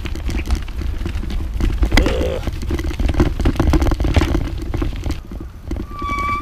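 Bicycle rolling fast down a rough gravel track: wind buffets the microphone and the tyres crunch and rattle over stones. Near the end a steady high tone starts and holds.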